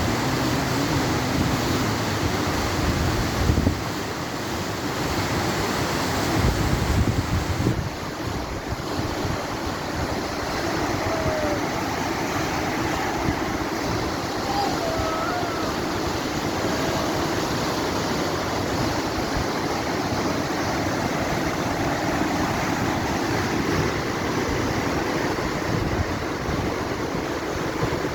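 Whitewater of the Beas River rapids rushing steadily, with wind buffeting the microphone in heavier gusts a few seconds in.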